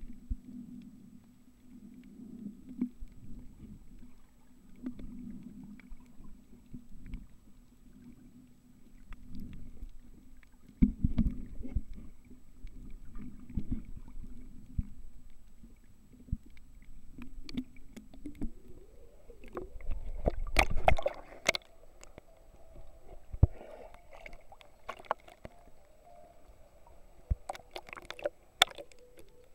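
Sea water heard through a camera's microphone held underwater: low, muffled water movement with occasional knocks of the camera being handled. About two-thirds of the way through the sound turns brighter as the camera nears the surface, with sharp splashes and clicks of water against the camera.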